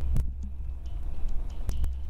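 Spinning reel being wound in with a cuttlefish on the line: a steady low rumble with a few short clicks, two of them close together near the end.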